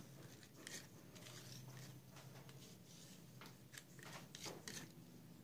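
Near silence with a few faint, short scrapes: a piece of card wiping thick paint off a flat stirring stick.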